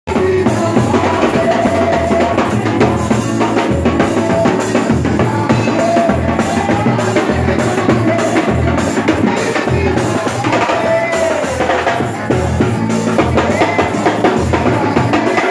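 Gospel music played with a full drum kit, bass drum and snare keeping a steady beat under a melody; it starts abruptly.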